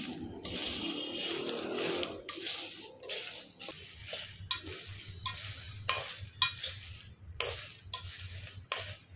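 Steel spoon scraping and clinking against a metal kadai while stirring dry red chillies roasting in a little oil. There is a longer scrape at first, then short strokes about twice a second.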